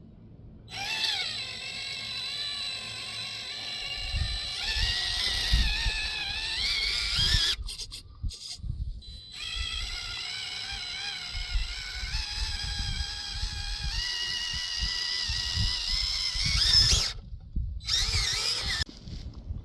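Small electric motor and gearbox of an FCX24 micro RC crawler whining, the pitch rising and falling with the throttle as it climbs rocks. It stops twice briefly, and there are low thumps underneath.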